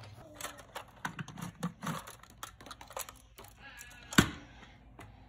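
Hard plastic toy parts being handled: scattered small clicks and knocks, with one sharp, louder click about four seconds in.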